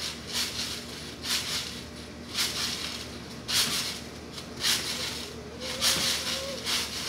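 Trampoline being bounced on, a hissing, swishing noise with each bounce, evenly about once a second.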